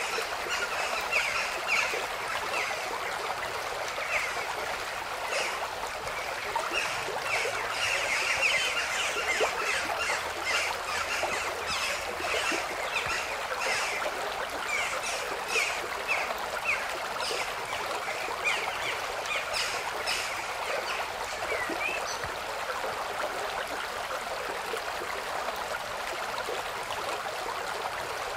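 Running water with many short bird chirps over it, a steady natural ambience with the chirps thickest in the first half.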